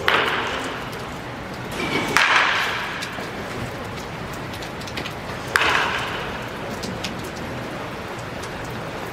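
Baseball bat striking pitched balls in indoor batting practice: three sharp cracks, at the start, about two seconds in and about five and a half seconds in, each ringing out over about a second in a reverberant hall.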